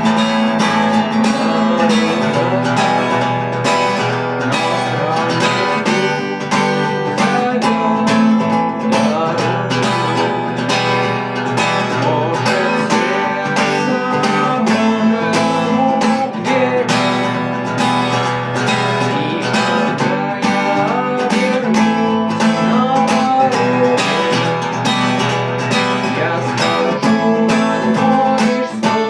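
Acoustic guitar music, strummed, with a steady rhythm.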